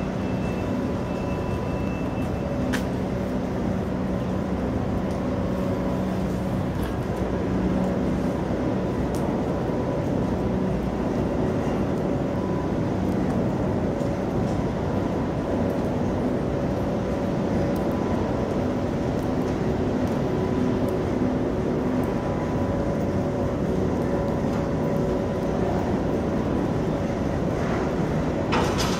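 Niederfinow ship lift's drive machinery running: a steady mechanical rumble with several constant hum tones from the riveted steel structure and its wire ropes and counterweight gear. A few clicks come near the end.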